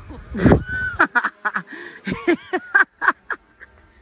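A person laughing in a quick run of short, high, honking bursts, after a brief loud rush of noise about half a second in.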